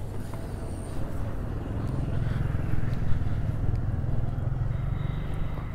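Motor vehicle engine running steadily, a low hum that grows slightly louder about two seconds in.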